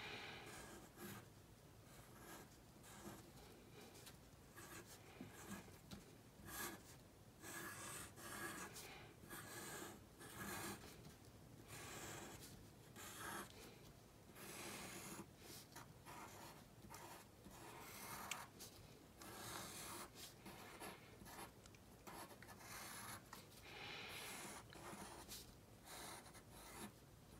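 Pencil drawing on a sheet of paper: faint, irregular scratching strokes, some short and some longer, with brief pauses between them.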